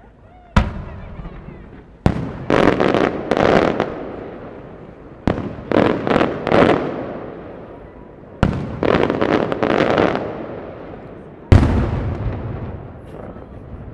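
Aerial fireworks bursting: a single sharp bang, then three volleys, each opening with a bang and running into a rapid string of reports. The loudest bang comes near the end. Each burst trails off in a long echo.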